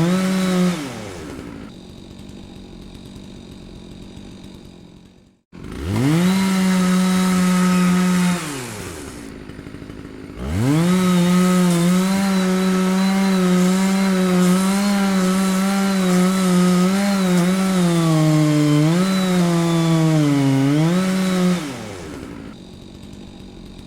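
Chainsaw engine revving and dropping back to idle. It falls from full throttle to idle about a second in, and the sound breaks off briefly around five seconds in. It then revs up again for about three seconds, idles, and holds high revs from about ten seconds in to about twenty-one seconds, wavering slightly, before settling back to idle near the end.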